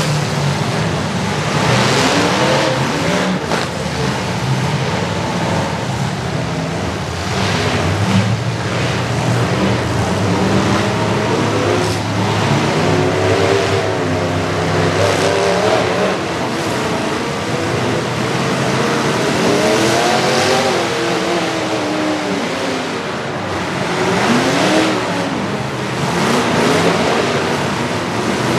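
Several demolition derby cars' engines running and revving together, their pitch rising and falling over one another, over a constant noisy din with louder bursts every few seconds.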